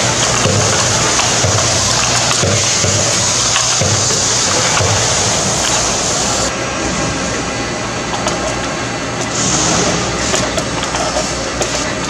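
Inline spindle capper with a waterfall cap feeder running: a steady mechanical clatter and hum as caps feed down the chute, with a high hiss that drops away about six and a half seconds in.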